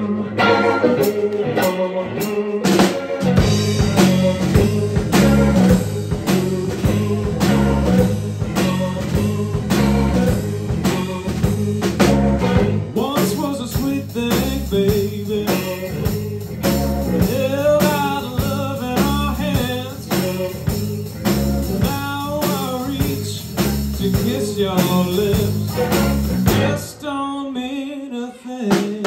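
Live blues band playing a shuffle: electric guitar, bass guitar and drum kit, with a voice singing over it from about halfway through.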